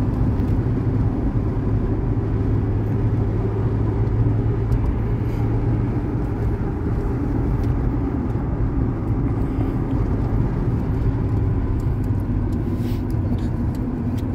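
Car engine and tyre noise heard from inside the cabin as a steady low hum, with the engine pulling uphill on a winding mountain road.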